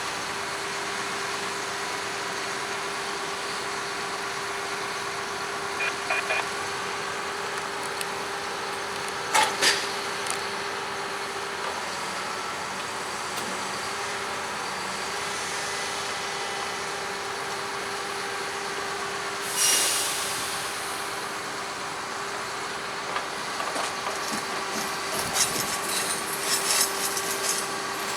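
A maintenance-of-way truck running with a steady hum and one held tone, with a short burst of air hiss about two-thirds of the way through and a run of knocks and rattles near the end.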